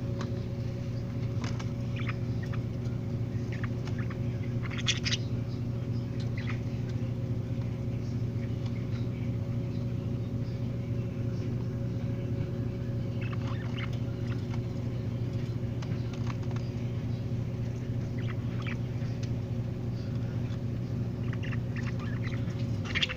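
A steady motor hum with several fixed tones, which sags in pitch and cuts off at the end. Over it come scattered short, high chirps and clicks from the budgies.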